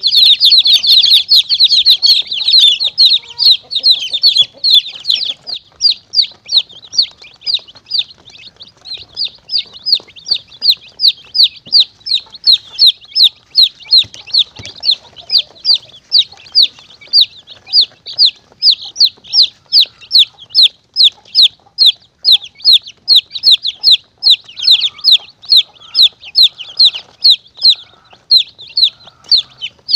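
Chicks peeping in distress: a steady run of high, falling peeps about two to three a second, denser and overlapping in the first few seconds. This is a chick distress call used as a lure for monitor lizards and mongooses.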